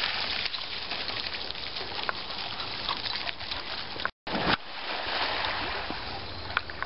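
Swimming-pool water splashing and sloshing as dogs swim and one climbs out onto the paving, with a few sharp splashes; the sound cuts out for a moment about four seconds in.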